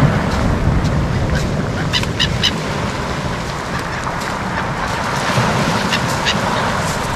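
Gulls calling in short squawks, a quick cluster about two seconds in and a few more near the six-second mark, over a steady wash of surf and wind.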